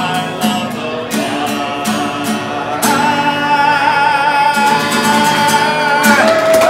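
Man singing to a strummed acoustic guitar; from about three seconds in he holds one long note with a slight vibrato, and the melody slides near the end.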